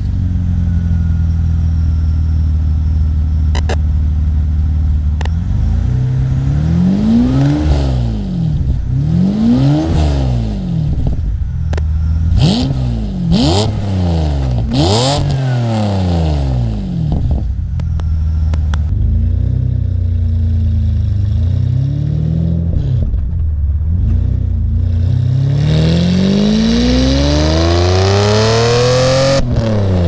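BMW E34 with a V12 engine, heard at the exhaust: idling steadily, then revved in a string of quick blips, a couple of lighter blips, and finally one long rev climbing steadily until it cuts off just before the end.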